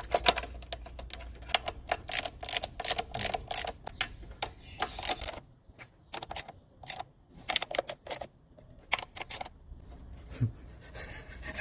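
Irregular sharp clicks and clacks of hand tools and metal parts being handled as a cleaned engine part is put back on, some quick runs of taps and a quieter stretch in the middle.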